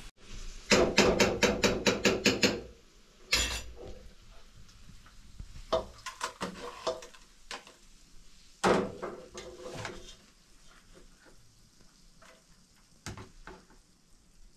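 Hard objects clattering and knocking together: a quick run of about ten sharp strikes, roughly five a second, about a second in. Then a single knock, scattered clinks, a second burst of clatter past the middle and one more knock near the end.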